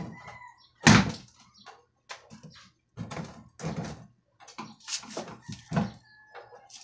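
A string of knocks and clicks from hands and a tool working on the plastic housing of a twin-tub washing machine's spin dryer, the loudest a sharp knock about a second in, over a faint steady low hum.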